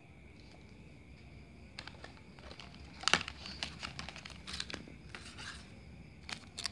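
Paper, cardboard and plastic packaging rustling and crinkling as a smartphone box's manual, inserts and wrapped earphones are handled. The rustling starts about two seconds in, is loudest around three seconds, and comes back in a short burst near the end.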